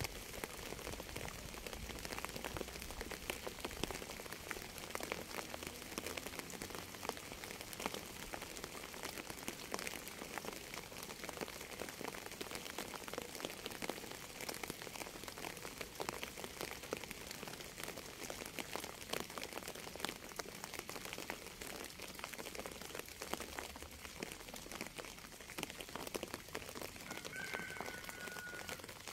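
Steady rain: a dense patter of drops striking a surface. Near the end a short high tone sounds for about a second.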